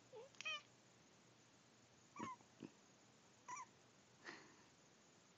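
Puppy whimpering: a series of about six short, high-pitched whines with falling pitch, faint and spaced out, the sound of a puppy upset at meeting a cat.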